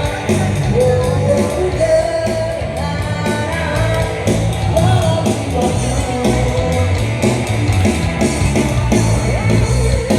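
A young singer singing a Malay rock song over a band, with the drums keeping a steady beat.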